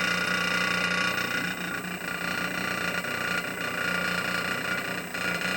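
Samsung inverter refrigerator's compressor running steadily after start-up, driven by the inverter board: a loud, even hum with several steady high tones over it.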